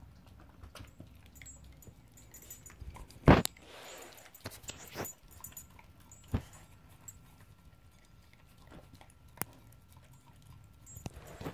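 Bedlington terrier eating scrambled egg from a plate: quiet licking and chewing with scattered clicks and knocks, the loudest a sharp knock about three seconds in.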